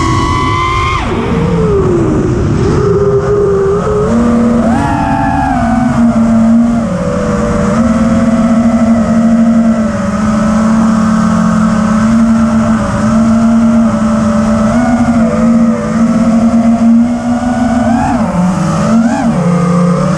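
FPV quadcopter's brushless motors and propellers whining in flight, the pitch rising and falling with throttle: a steep climb that drops away about a second in, then a mostly steady pitch with quick swoops up and down near the end.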